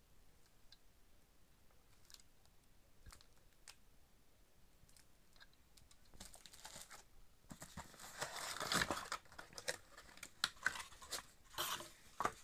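Cardboard packaging and plastic wrapping being handled: a few faint clicks, then from about six seconds in, crinkling and rustling in bursts, loudest a couple of seconds later.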